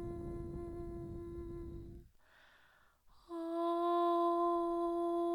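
A woman's voice chanting a long "Om" held on one steady pitch as the seed sound of the third-eye chakra. It stops about two seconds in, she breathes in, and a second held "Om" starts about three seconds in.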